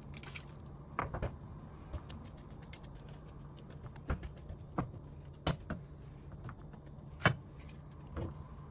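Scattered light taps and clicks of a silicone spatula and a pan lid being handled on a frying pan, over a faint low steady hum.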